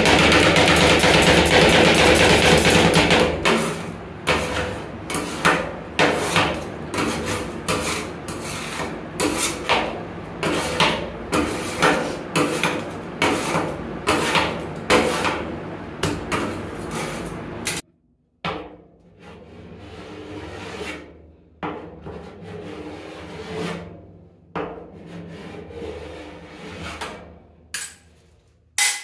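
Metal spatulas chopping and scraping ice cream mixture on a steel cold plate: a fast clatter at first, then sharp metal-on-metal strikes about once a second. After a sudden drop in level, softer scraping strokes as the mixture is spread thin.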